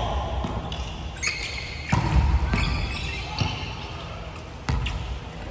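Volleyball struck by hands and arms during a rally: about five sharp hits, the loudest about two seconds in and near the end, each echoing in the gymnasium.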